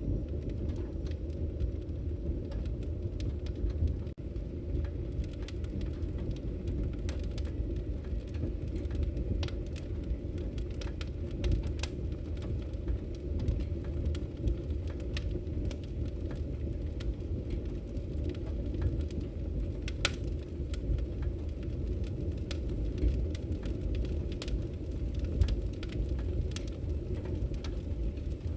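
Wood fire crackling in a fireplace: a steady low rumble of burning with frequent sharp, irregular pops and snaps, one louder pop about two-thirds of the way through.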